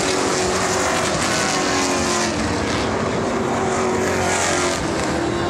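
A field of race cars running laps on an oval track, several engines sounding together at once, their pitch wavering up and down as cars pass.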